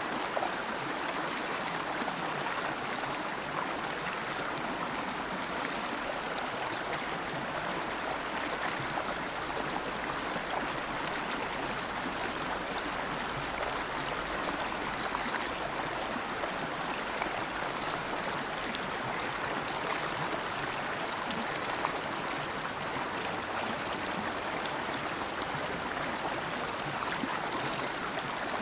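River water flowing steadily, a continuous rushing with small gurgles.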